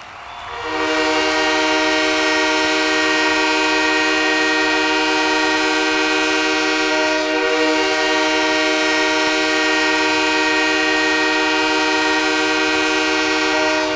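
Goal horn sounding one long, steady blast, a chord of several horn tones, starting about half a second in, over the noise of an arena crowd.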